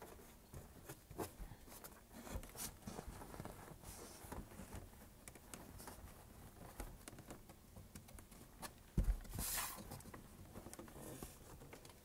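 Hands handling and pressing a wall panel against the van's side wall: faint rustling, taps and small clicks, with one thump about nine seconds in followed by a short scraping rustle.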